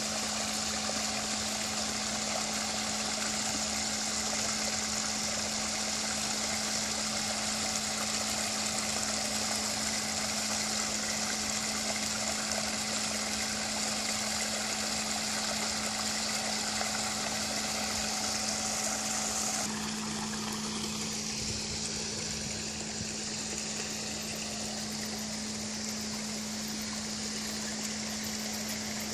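Small garden waterfall splashing steadily down a rock-lined stream into a pond, with a steady low hum underneath. About twenty seconds in, the water sound drops to a fainter hiss while the hum goes on.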